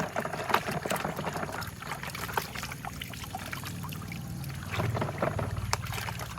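Water pouring and splashing while plastic toy trucks knock and clatter, over a low steady hum that swells about five seconds in.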